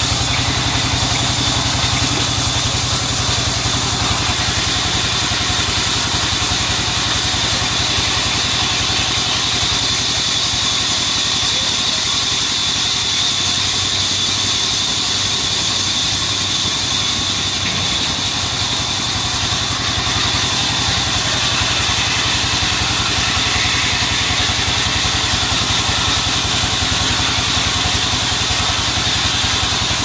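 Engine-driven sawmill band saw running steadily as it rips lengthwise through a squared timber beam, a constant engine drone with a high-pitched blade sound over it.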